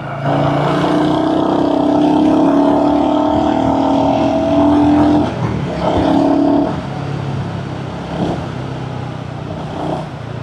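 Royal Enfield Hunter 350's single-cylinder engine pulling under throttle, its pitch rising slowly, with a break about five seconds in as the gear changes and a short second pull before it settles into a quieter steady run.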